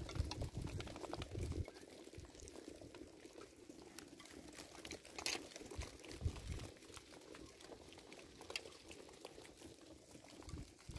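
A flock of sheep walking along a dirt track: faint, scattered patter of hooves on the dry ground. There are low rumbles of wind on the microphone in the first couple of seconds and again about six seconds in.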